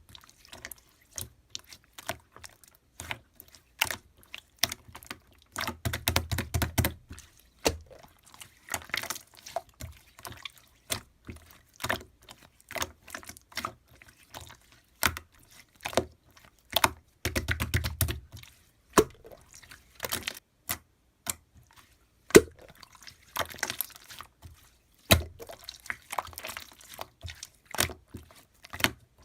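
Slime being squeezed and worked by hand, giving sharp wet clicks and pops from trapped air, with two longer runs of rapid crackling about six and seventeen seconds in.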